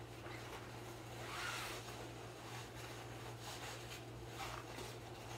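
Faint rustling of a Hakata-weave half-width obi and the yukata cloth as the obi is wrapped once around the waist, over a steady low hum.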